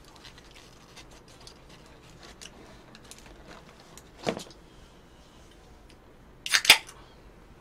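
Faint handling clicks and rustles, with a brief noise about four seconds in. Then, about six and a half seconds in, the loudest event: a short sharp hiss of a drink can being opened.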